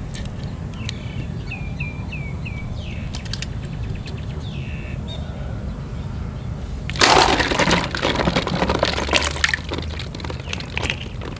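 Hands rummaging through plastic balls in a tub with some water in it, giving a dense clattering, splashing rustle for about two and a half seconds starting about seven seconds in. Before that there are small handling clicks of a plastic toy loader and a few faint bird chirps over a steady low hum.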